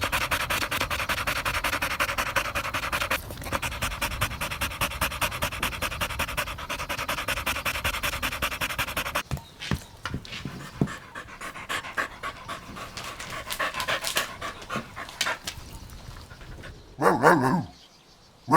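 A dog panting fast and evenly, then slower and softer after about nine seconds, followed by a bark near the end.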